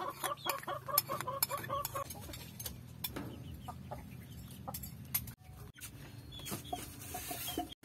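Chickens clucking: a quick run of short notes, about four a second, for the first two seconds, then a few scattered clucks near the end, with light clicks in between.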